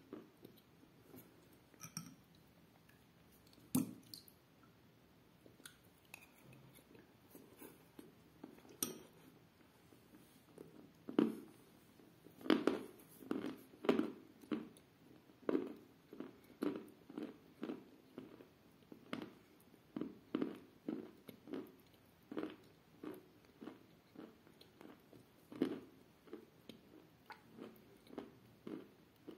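A person chewing a mouthful of chalk and clay soaked in milk, close to the microphone. First come a few scattered clicks and smacks, then, about a third of the way in, steady chewing at roughly two chews a second.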